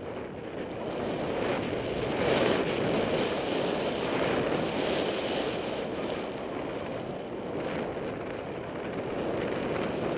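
Wind rushing over a goggle-mounted camera's microphone, mixed with skis running through deep fresh powder, as a skier sets off and picks up speed. It swells over the first couple of seconds, then holds as a steady rush.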